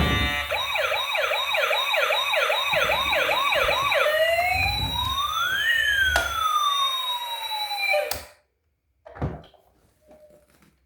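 Emergency-vehicle siren: a fast yelp of about three swoops a second, then a slower wail of two crossing tones, one rising while the other falls. It cuts off suddenly about eight seconds in, and a brief faint sound follows.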